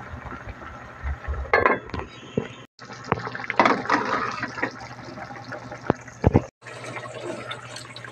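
Thick stew bubbling and sloshing in a pan as it is stirred, with a couple of sharp utensil knocks against the pan about six seconds in. The sound breaks off briefly twice, and a steady low hum runs under it.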